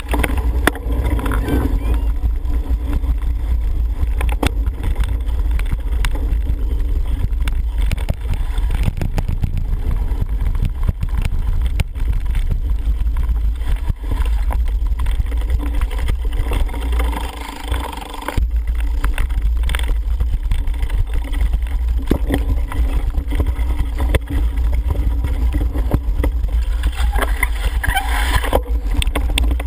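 Wind buffeting a helmet camera's microphone in a steady low rumble while a cyclocross bike is ridden at race speed. Frequent short clicks and rattles of the bike come over rough ground.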